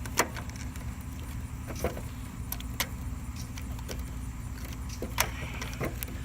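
A handful of sharp metallic clicks and clinks from the bolt and relay bracket being handled and lined up during a starter relay refit, over a steady low background rumble.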